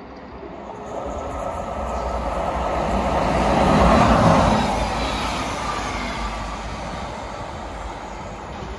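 SJ electric locomotive hauling passenger coaches passing through the station: the rumble and wheel noise build to a peak about four seconds in, then fade as the train moves away.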